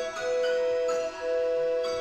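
Toy piano music: bright, bell-like notes struck about once a second, each ringing on briefly before the next.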